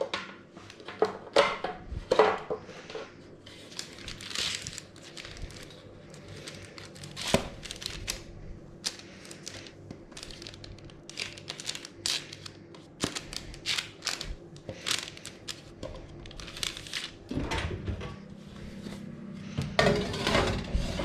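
Kitchen handling sounds: irregular crinkling, clicks and light knocks, over a faint low steady hum.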